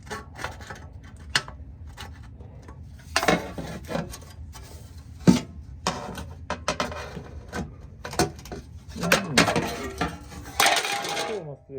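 Metal clinks, knocks and scraping from sheet steel and hand tools being handled on a workbench. There are many irregular knocks, a sharp loud one about five seconds in, and longer scraping stretches near the start and toward the end.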